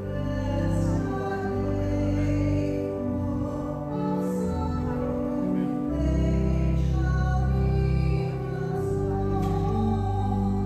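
Church hymn sung with keyboard accompaniment; the instrument holds long sustained chords under the melody.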